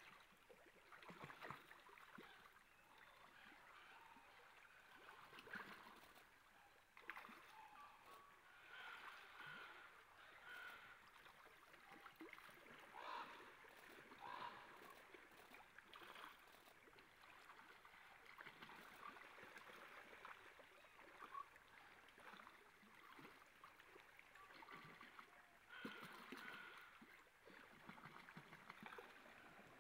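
Faint flowing water of a salmon stream, with short splashes here and there.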